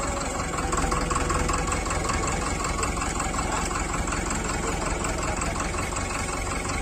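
Powertrac Euro 55 tractor's diesel engine running steadily at idle, an even unbroken note.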